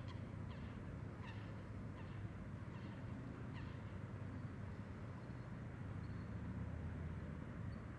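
Bird calls: about six short calls, each falling in pitch, in the first four seconds, then a few faint high notes, over a steady low rumble.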